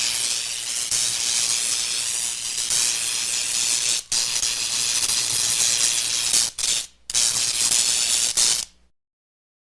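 Loud, steady hissing sound effect, like steam or spray jetting out. It is broken by a brief gap about four seconds in and two more near seven seconds, then cuts off abruptly shortly before the end into silence.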